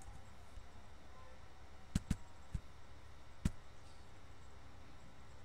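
A few sharp clicks from computer input while a spreadsheet is being filled in: a close pair about two seconds in, then two single clicks, over a steady low hum.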